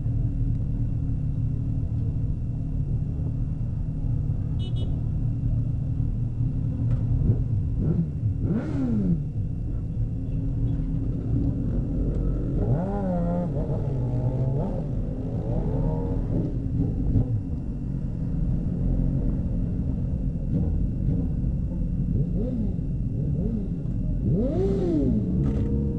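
A group of sport motorcycles running at idle with a steady low rumble, as bikes rev and pull away, their engine pitch rising and falling about a third of the way in, through the middle, and again near the end.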